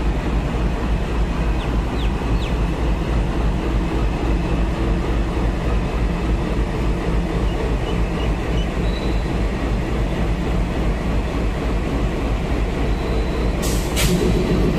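WDG-3A diesel locomotive engine running with a steady deep hum. Two sharp knocks come about a second before the end.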